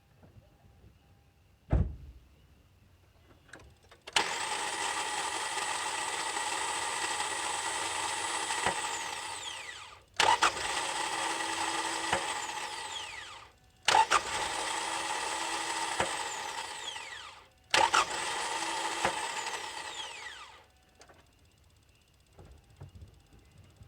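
The starter motor of a Hyundai/Kia 2.4L engine is engaged four times. Each time it begins with a sharp solenoid click and spins freely with a steady high whine, without cranking the engine, then winds down falling in pitch when released. This is the starter spinning but not engaging, most likely from a broken solenoid-to-pinion lever. A single low thump comes about two seconds in.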